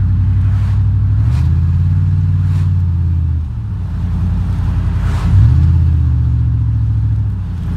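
Vehicle engine and road noise heard from inside the cab. The engine pulls harder twice, about a second in and again past five seconds, and eases off after each.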